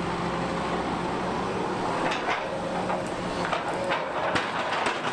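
Doosan DX380LC tracked excavator's diesel engine running with a steady hum, with scattered knocks and clanks, most of them from about two seconds in.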